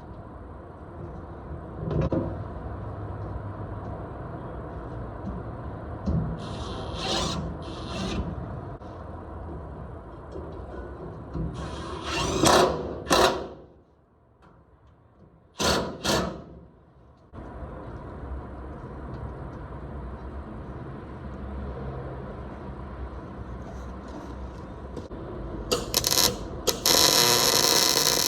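Hand-tool work on metal: rubbing, scraping and ratcheting sounds over a steady background hum, with a few short louder scrapes. Near the end a loud steady whir starts, like a power tool spinning up.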